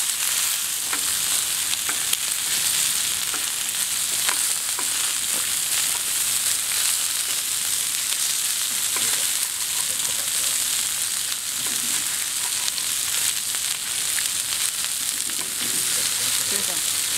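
Pork neck meat sizzling steadily on a hot flat griddle, with a few light clicks as a cleaver and tongs cut and move the pieces on the plate.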